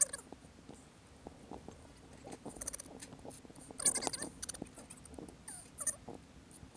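Three or four short, wavering animal calls, the loudest about four seconds in, with faint clicks and rustling between them.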